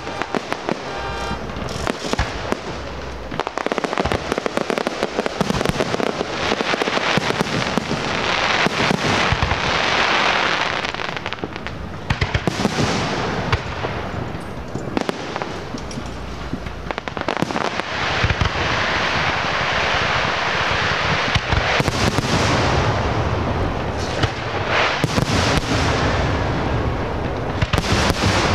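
Fireworks display: a continuous barrage of sharp bangs and dense crackling, the crackle swelling strongest about ten seconds in and again near the end.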